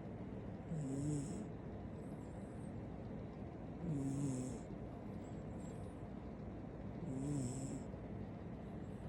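Shiba Inu puppy snoring in its sleep: three snores about three seconds apart, each a short low rumble with a hissy edge, with softer breaths between.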